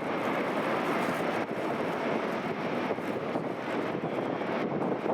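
Jet noise from a Ryanair Boeing 737-800's CFM56 turbofan engines: a steady rushing sound with no rise or fall.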